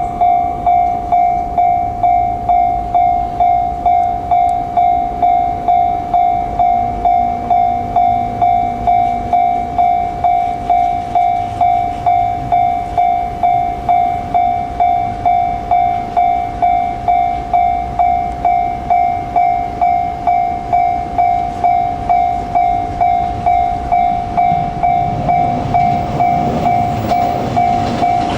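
Japanese level-crossing warning bell ringing steadily at about two strikes a second. Near the end the low rumble of an approaching train rises beneath it.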